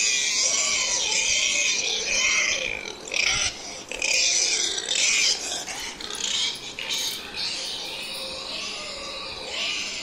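Pig vocalising in a run of long, harsh high-pitched squeals with short breaks between them, softer after about six seconds.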